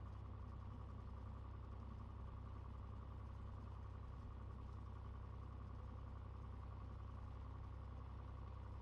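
Steady, unchanging drone of a Cessna single-engine light aircraft's piston engine and propeller, heard from inside the cabin.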